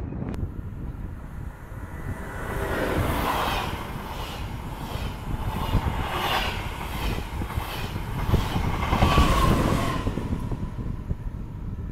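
TGV Duplex double-deck high-speed train passing at speed without stopping, a loud rushing noise that pulses about twice a second as the cars go by. It dies down near the end.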